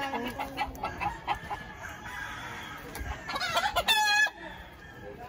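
A rooster crows once, about three seconds in, a wavering call lasting about a second, with lighter clucking before it.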